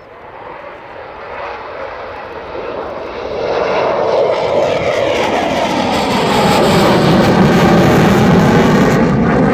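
Sukhoi Su-27's twin AL-31F turbofans roaring as the jet approaches on a display pass, growing steadily louder. About halfway through, tones begin to sweep up and down through the roar.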